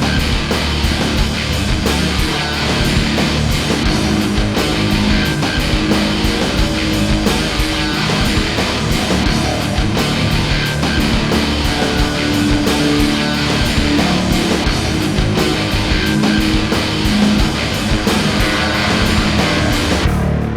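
Loud rock music with distorted electric guitar and a steady driving beat.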